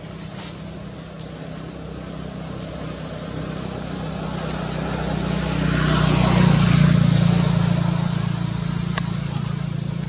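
A motor vehicle passing: its engine hum and road noise grow louder to a peak about six and a half seconds in, then fade. A single sharp click near the end.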